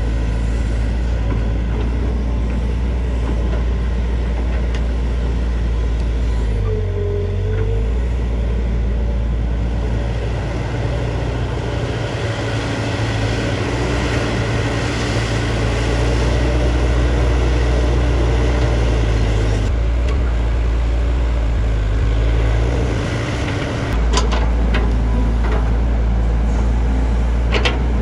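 JCB JS205 tracked excavator's diesel engine running steadily under working load, its note dipping briefly about a quarter of the way in and again near the end.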